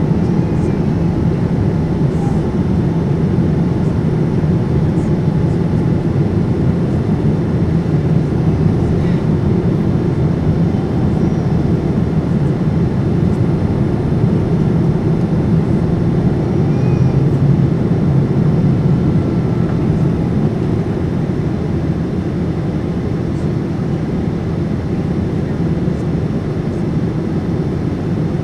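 Steady in-cabin noise of a Boeing 787-9 on descent: airflow and the Rolls-Royce Trent 1000 engines as a loud, even, low rumble that eases slightly about two-thirds of the way through.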